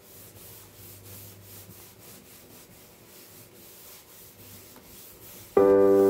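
Wet foam sponge rubbed back and forth across a wooden workbench top, a steady run of soft wiping strokes. Music comes in suddenly and loudly near the end.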